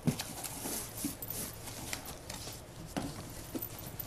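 Cardboard box flaps being pulled open and handled: scattered rustles, scrapes and a few small thumps of cardboard.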